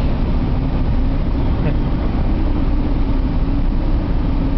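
SF-25C Falke motorglider's engine and propeller running steadily, a loud low drone heard inside the cockpit.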